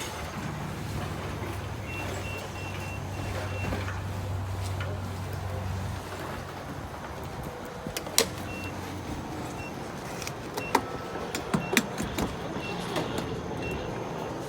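Low motor hum for about the first six seconds, with a short high electronic beep repeating at intervals, then several sharp clicks and knocks.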